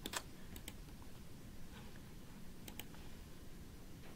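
Faint computer mouse clicks, a few of them, mostly in quick pairs, over low background room noise.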